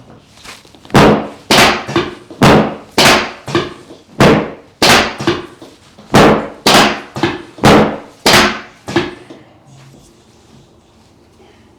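A quick series of about a dozen loud, sharp strikes, roughly two a second, each ringing out briefly. They stop about nine seconds in.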